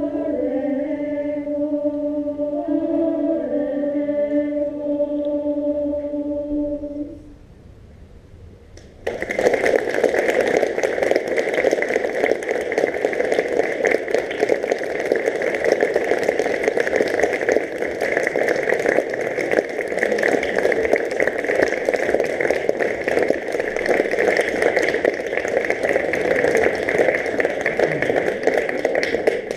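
Choir holding its final sung chord, which ends about seven seconds in. After a brief hush, the audience breaks into steady applause.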